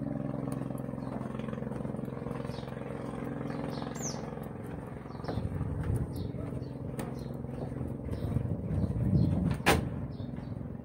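Pump boat engine droning at a steady pitch. A low rumble comes up in the second half, and there is a single sharp knock near the end.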